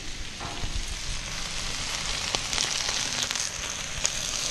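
Oil sizzling on hot barbecue grill grates as they are being oiled, a steady hiss with scattered sharp crackles.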